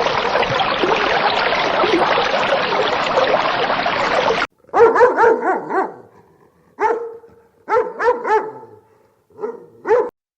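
A dense, even rush of noise cuts off abruptly about four and a half seconds in. A dog then barks in short sharp barks, several in quick groups of two to four with brief pauses between them.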